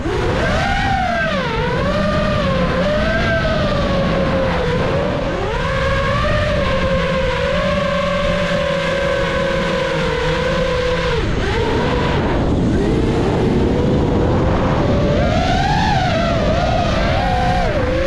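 Brushless motors and propellers of a 5-inch freestyle FPV quadcopter, heard from its onboard camera, whining with a pitch that rises and falls with the throttle. The pitch holds fairly steady through the middle, drops sharply about two-thirds of the way through, then climbs again.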